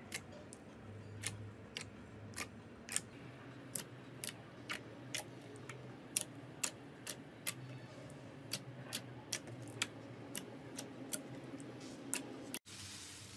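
Thick slime being kneaded and squeezed by hand, giving sharp clicks and pops about twice a second as air pockets are pressed out. Near the end it cuts off suddenly into a steady hiss.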